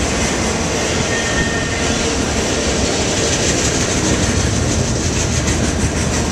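Freight train of enclosed autorack cars rolling past close by: a steady, loud rattle and rumble of steel wheels on the rails and of the cars' bodies, with no locomotive in earshot.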